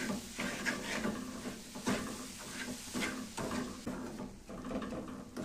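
A wooden spatula scrapes and stirs a crumbly roasted-semolina mixture around a metal kadai in irregular strokes, about two a second. This is the milk being mixed in so the ladoo mixture gathers together.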